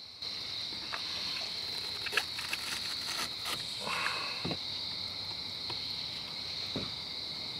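Crickets trilling steadily, one high shrill tone throughout. Scattered faint clicks and taps from knife work on a wooden cutting board come over the top.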